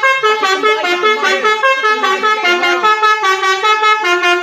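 Pakistan-style basuri telolet bus horn playing a fast melody: loud, steady multi-tone notes that step from pitch to pitch several times a second without pause.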